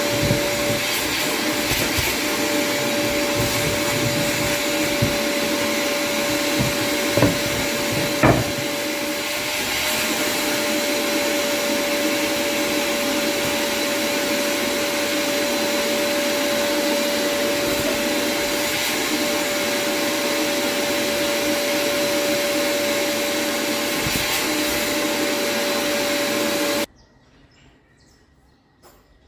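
Electric power tool motor running steadily at speed, a whining hum with a constant tone and a few light knocks, then switched off and cutting out suddenly near the end.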